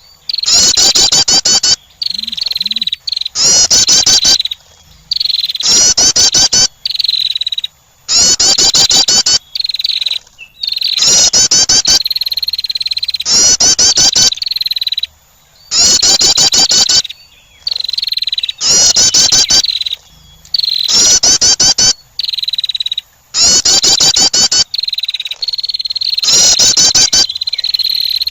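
Female wren's attracting call: a rapid, high chattering trill about a second long, ending in a thin high note, repeated roughly every two seconds.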